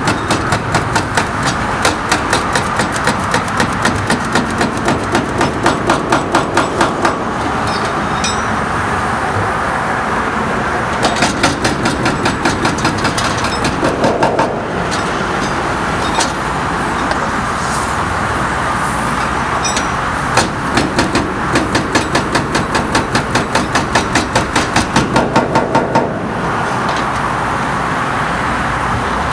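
Hydraulic breaker hammer on a Link-Belt 210XL excavator pounding concrete in rapid, even blows. It comes in three long bursts with pauses between them, and a steady engine and traffic noise runs underneath throughout.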